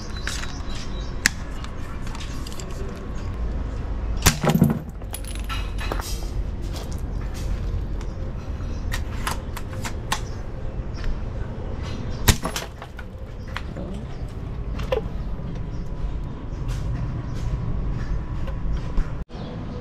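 Double Bell VSR-10 spring-powered airsoft sniper rifle being fired at a glass bottle. A handful of sharp clacks from the shot and the cocking bolt, the loudest about four and twelve seconds in, with the glass bottle being hit and breaking, over a steady low background hum.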